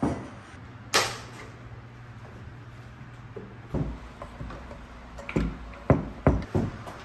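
A sharp knock about a second in, with a low hum underneath for a couple of seconds, then a series of knocks and bumps near the end.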